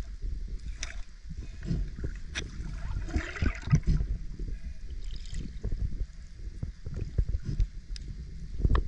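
Underwater sound of a diver handling a speared barracuda: water movement with irregular low thumps and sharp clicks, and a brief hiss about three seconds in.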